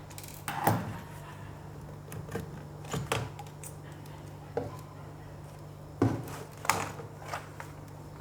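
Laptop being taken apart by hand: several sharp clicks and knocks of tools and plastic case parts, the loudest about half a second in and around six seconds, over a steady low hum.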